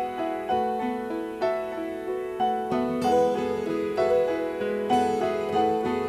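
Keyboard music: a melody of struck notes, about two a second, each ringing and fading.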